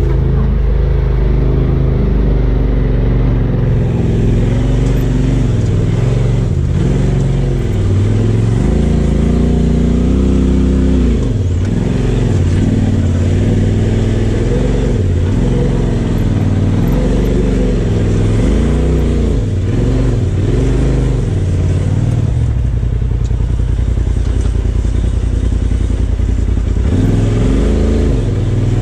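Polaris RZR Turbo S's turbocharged twin-cylinder engine heard from the cab, its revs rising and falling again and again as the throttle is worked over the rough trail, running steadier for a few seconds near the end.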